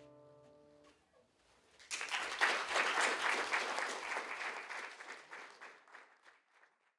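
The last chord of a classical guitar rings and dies away in the first second. Then, about two seconds in, an audience starts applauding for about four seconds and fades out near the end.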